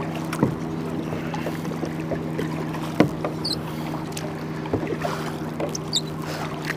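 Kayak being paddled: the paddle dips into the water and knocks a few times against the plastic hull and shaft, over water lapping and a steady low hum.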